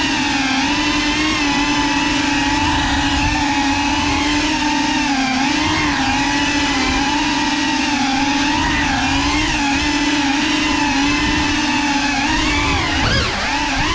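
Electric motors of a small FPV drone whining steadily, the pitch wavering up and down with the throttle, with a sharper drop and rise near the end.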